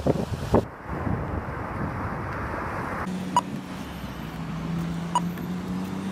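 Engine drone with a sharp, regular click about every two seconds over it; the clicks start about halfway through. Wind and surf noise fill the first half-second.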